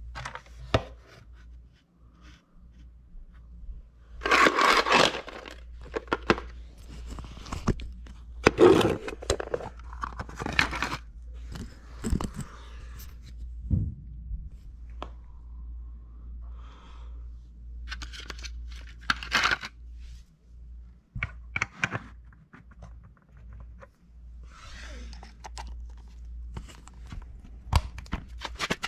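Irregular handling noises of tools: scrapes, rustles and plastic clicks as a plastic screwdriver-bit case is opened and handled, loudest in two bursts in the first half.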